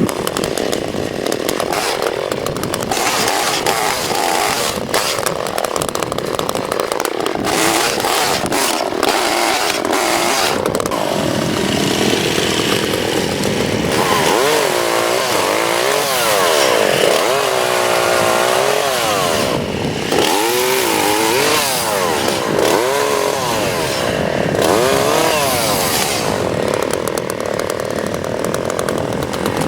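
Lighter chainsaw running. Its engine note is fairly steady at first, then revs up and down over and over from about halfway in as it cuts dead oak branches.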